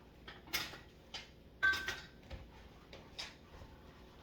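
Dishes clinking and knocking together as they are washed by hand, a handful of separate knocks; the loudest, about one and a half seconds in, rings briefly like crockery.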